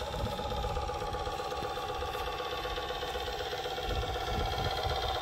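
RC Mack Titan heavy-haul truck (a rebuilt Tamiya Knight Hauler) driving under a heavy load, its engine sound running steadily with a fine, even knocking pulse. It gets a little louder about four seconds in.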